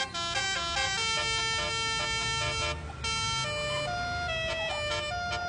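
Telolet bus horn playing a melody: a run of short notes, then longer held notes stepping up and down in pitch, with a brief break about three seconds in.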